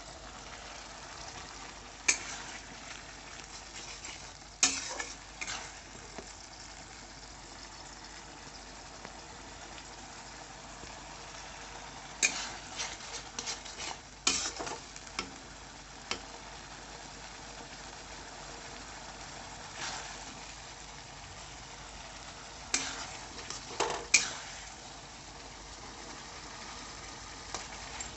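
Chicken curry frying in a pan with a steady sizzle, stirred with a metal spoon that scrapes and knocks against the pan in short clusters of clicks.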